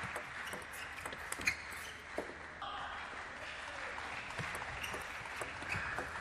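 Plastic table tennis ball clicking sharply off the bats and table in a fast rally, a few hits about half a second apart, then stopping once the point is won. Under it runs a steady hiss of hall noise.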